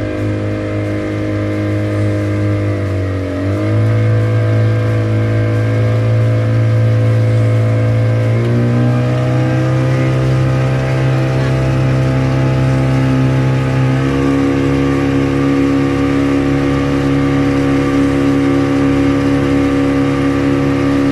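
Outboard motor pushing a small aluminium boat, running steadily under way. Its note steps up in pitch as the throttle is opened three times: a brief dip and rise about three seconds in, another rise near eight seconds, and a last near fourteen seconds, after which it holds steady.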